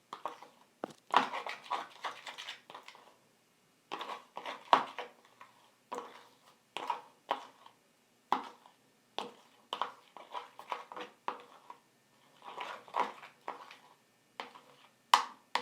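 Spoon stirring colouring into glue in a bowl: irregular short clicks and scrapes, in uneven runs with brief pauses.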